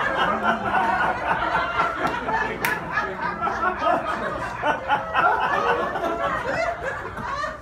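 A roomful of people laughing and chattering at once: many overlapping voices with no single speaker standing out.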